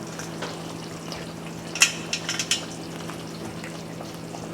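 A kitchen utensil knocking and clinking against cookware: one sharp clank followed by a quick run of lighter clinks, over a steady low hum. The clinks are typical of serving stew out of a pot.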